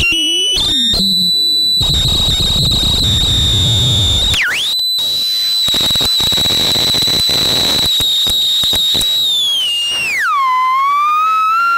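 "Ton of Noise" synthesizer module putting out a loud electronic tone while its knobs are turned. It starts choppy and stuttering for about two seconds, then settles into a high steady tone with a brief downward swoop a little after four seconds. Near ten seconds it glides down sharply and then slowly rises again.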